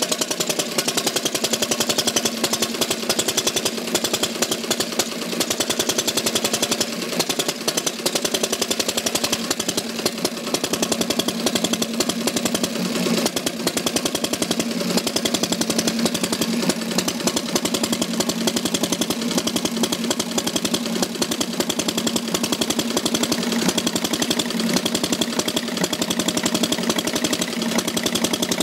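1901 Triumph Prototype motorcycle engine running steadily on its stand, a fast, even stream of firing beats, while its tank-top control levers are set for the best running.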